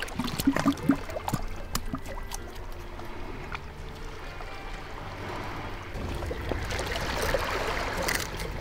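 Sea water washing over shoreline rocks, building up near the end, with sharp clicks as scissors snip the spiny fins off a lionfish.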